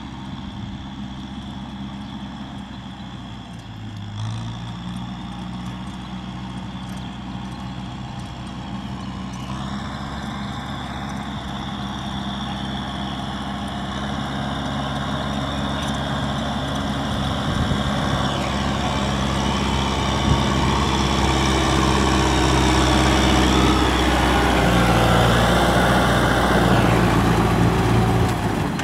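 Kubota M6040 tractor's four-cylinder diesel engine running steadily under load while its rear rotary tiller churns wet paddy soil, growing steadily louder as the tractor approaches.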